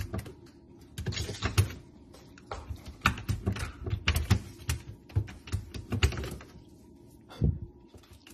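A puppy's claws and paws clicking and scratching against a refrigerator's plastic freezer drawer and the tile floor as it paws at the drawer. The sound is a run of quick light taps in short bursts, with pauses between them and one last tap near the end.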